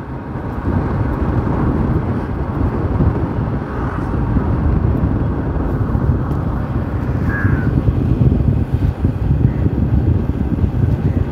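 Motorcycle ride heard from the saddle: steady wind rumble on the microphone mixed with the bike's engine and road noise.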